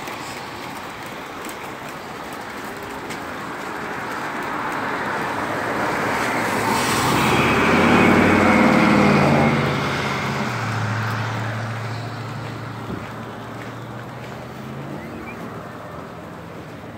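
An older two-door car driving past on a wet road. Tyre hiss and engine build over several seconds and are loudest about eight to nine seconds in. Then the engine hum drops in pitch and fades as it moves away.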